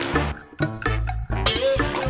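Background music with a stepping bass line and a steady percussive beat; it drops out for a moment about half a second in, and a sharp hit lands about a second and a half in.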